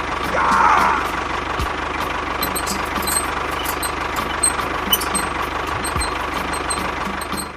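A small engine running steadily, with scattered light clicks and taps over it.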